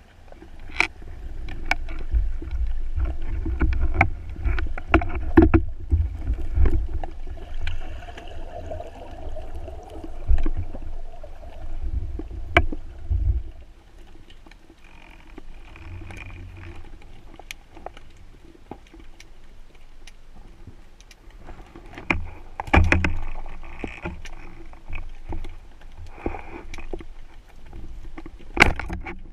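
Water rushing and swirling around the camera on a spearfishing dive, with a heavy low rumble for roughly the first half and scattered sharp clicks and knocks throughout.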